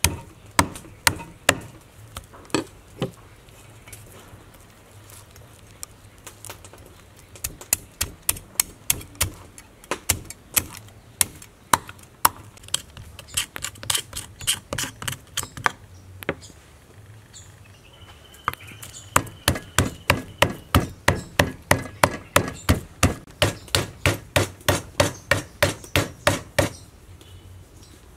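Large kitchen knife chopping and mincing Proma fish flesh on a wooden chopping board: sharp knocks of the blade on the board. There are a few scattered strikes at first, then quick, even runs of about three chops a second, with a short break in the middle.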